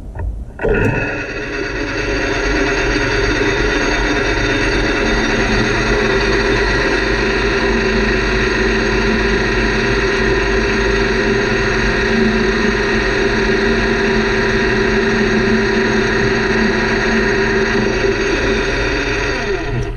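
Metal lathe running steadily while cutting metal off a gear blank. It starts about a second in and stops near the end, with a steady hum and whine of many pitches.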